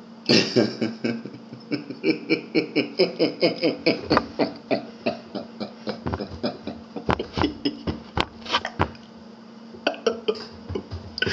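A man's long fit of laughter: rapid, rhythmic bursts of breathy laughing, about four a second, that ease off briefly about nine seconds in and then start again.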